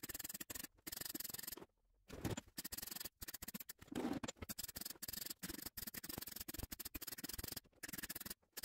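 MIG welding arc crackling on car-body sheet steel in short stop-start bursts, as a patch is stitch-welded into a rusty rocker panel; there is a longer pause about two seconds in and another near the end.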